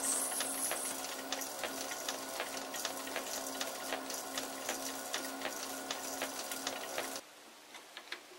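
Lathe running with the spindle turning as a hardstone is held against its steel bearing journal to polish it: a steady pulsing hum with a scraping hiss and many small ticks. The sound stops abruptly about seven seconds in.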